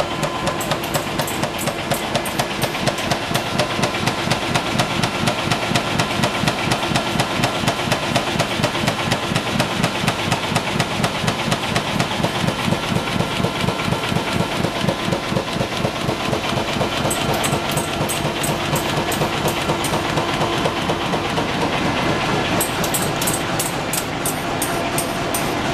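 Dongfang TOPRA AD920 corrugated-board printing machine running at high speed: a steady rhythmic clatter of about four beats a second, one for each sheet fed at 15,000 sheets an hour. Twice in the second half, a run of fast high clicks rides over it.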